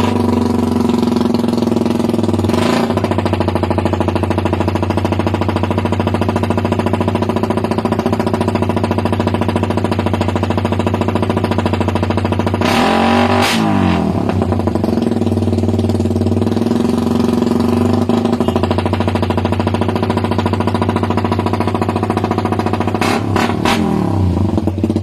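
Suzuki Raider 150 motorcycle idling through an aftermarket exhaust, with a short throttle blip about three seconds in, a longer rev around halfway, and two quick blips near the end.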